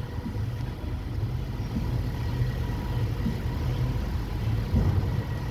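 2021 Nissan Sentra's four-cylinder engine idling steadily with a low, even hum.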